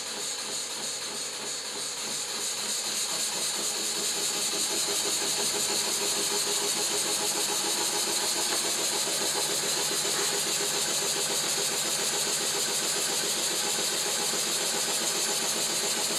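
Model horizontal steam engine running on compressed air: a fast, even chuffing from the cylinder's exhaust over a steady high hiss of air. It gets louder over the first few seconds, then runs steadily.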